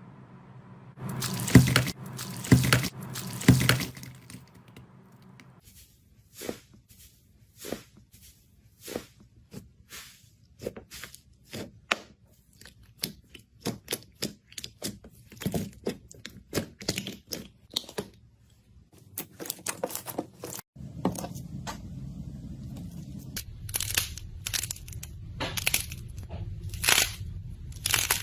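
A long irregular series of sharp cracks and crunches, loudest in a few hits near the start and again near the end, with a steady low hum joining partway through.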